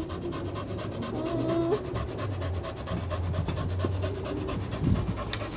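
A dog panting quickly and steadily close by.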